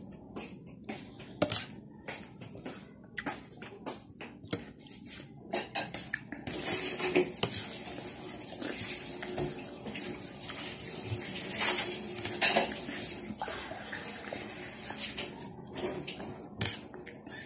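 A spoon and fork clinking and scraping on a plate during a meal, with many short clicks. From about six seconds in a steady hiss comes in under further clinks.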